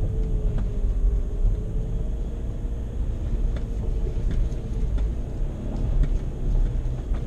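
A VW Amarok's 2.0 BiTDI twin-turbo four-cylinder diesel runs at a steady, gently wavering pitch under a heavy low rumble as the pickup drives off-road. A few faint knocks and rattles are scattered through it.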